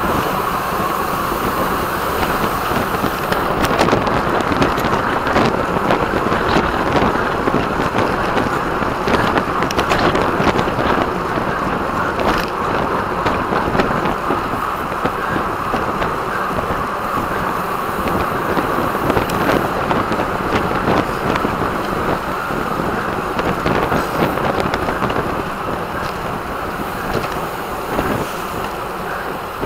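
Steady rush of wind over the microphone of a camera carried on a road bike at race speed, with a few sharp clicks scattered through it.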